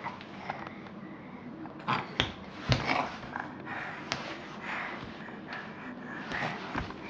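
A small child making breathy, sniffing vocal noises, with a few sharp hand claps about two to four seconds in.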